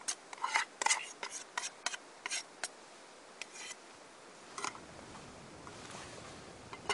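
A spoon scraping pancake batter out of a bowl into a frying pan: quick scrapes, about three a second for the first three seconds, then a couple more. A faint steady hiss builds behind them in the second half.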